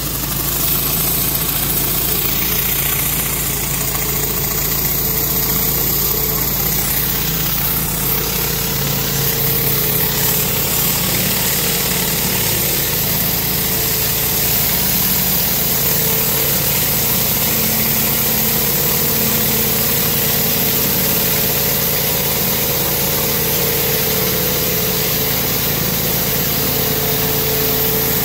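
Pressure washer engine running steadily, with the constant spray hiss of a rotary surface cleaner's jets on concrete.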